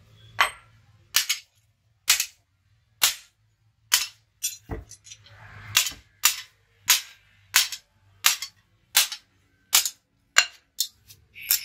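Hammer blows on a hot billhook blade on a steel anvil: a steady run of sharp metallic strikes, a little more than one a second, with a few lighter taps between them.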